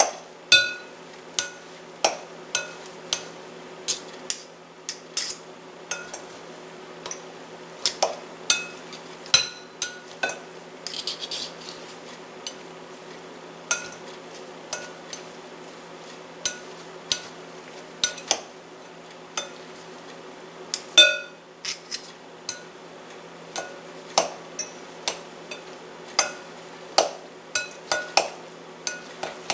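Metal fork and knife clinking and scraping against a glass mixing bowl while chopping shredded chicken: irregular sharp clinks with a brief glassy ring, about one to two a second. A steady low hum runs underneath.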